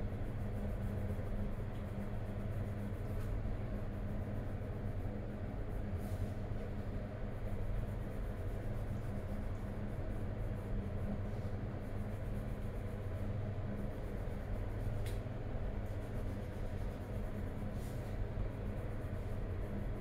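A steady low hum, with coloured pencil faintly scratching on paper and a few light ticks.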